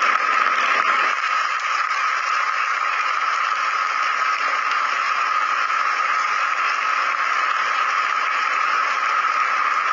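Audience applauding: a steady clatter of many hands clapping that neither swells nor fades.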